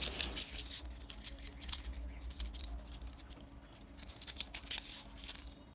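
Faint scattered small clicks and light rustling of toy cars being handled, over a low steady hum.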